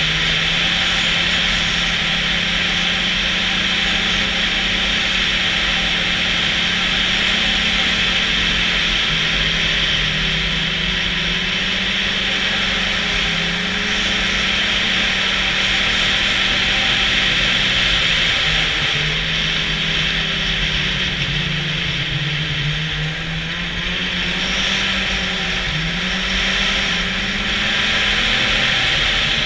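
Snowmobile running along a trail, its engine holding a steady pitch that rises and falls a little with the throttle, over a constant hiss.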